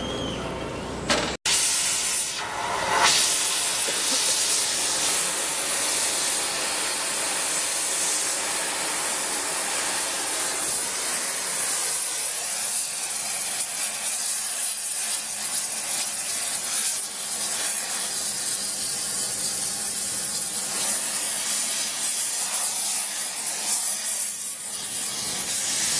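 Gas preheating torch burning at the mold on a rail joint, a steady, loud hiss that starts about two seconds in. This is the preheating stage of a Goldsummit thermite rail weld, heating the rail ends before the molten steel is poured.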